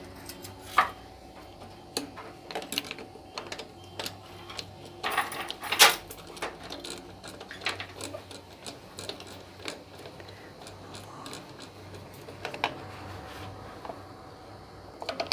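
Irregular clicks and taps of a screwdriver and small metal parts being handled while the wiring terminals at the end of a pump's electric motor are worked on, with a sharper knock about a second in and another about six seconds in.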